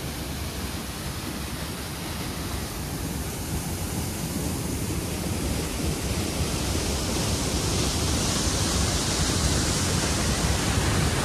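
Waterfall in strong flow: a steady rush of falling water, growing gradually louder and brighter over the second half.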